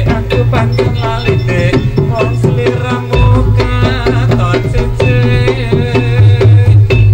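Jaranan dance music: a steady hand-drum beat with melodic instruments playing over it.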